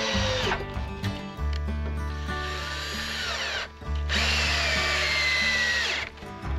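Cordless drill working into wooden lumber, its motor whine sliding down in pitch as it bites. It runs three times: a run ending about half a second in, a fainter one in the middle, and a longer, louder one from about four to six seconds in.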